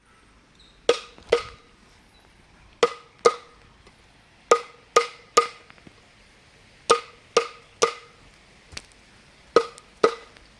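Sharp knocks with a short ringing tone, about a dozen in all, struck in quick groups of two or three with pauses between.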